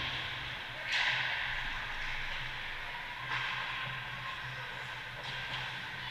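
Hockey skate blades scraping and carving the ice, with a sharp scrape about a second in, over a steady low hum.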